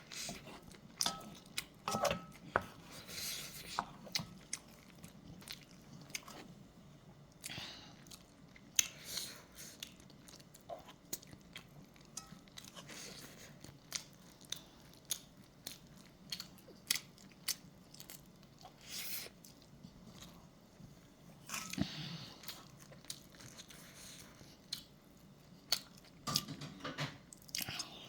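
Close-up chewing of kimchi fried rice: irregular wet mouth clicks and soft smacking, with a couple of brief clinks of a spoon on a dish in the first two seconds.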